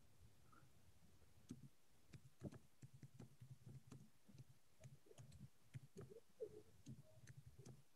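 Near silence: faint room tone with scattered soft clicks.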